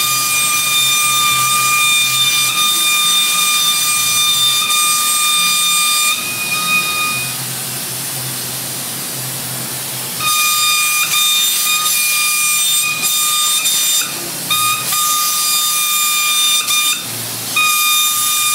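Paint spray gun spraying a coat, a hissing air jet with a steady whistle. It stops for about four seconds near the middle and twice more briefly near the end as the trigger is released.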